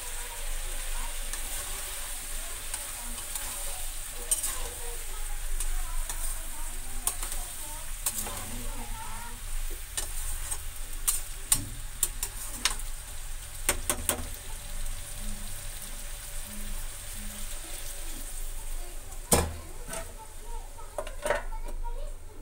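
Vegetables sizzling in a metal kadai while a metal spatula stirs them, scraping and clicking against the pan. Near the end come a louder clank and a few clinks as a steel plate is set over the kadai as a lid.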